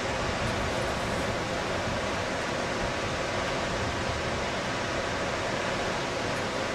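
Steady rushing of Horsetail Falls, a tall waterfall plunging into its pool, heard as an even wash of water noise.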